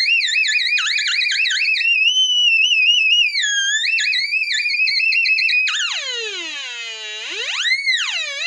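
Homemade NE555 astable square-wave oscillator sounding through a small loudspeaker, its pitch set by a photoresistor: a high electronic tone that warbles quickly up and down as a hand shadows the sensor, then dives low and sweeps back up, twice, near the end.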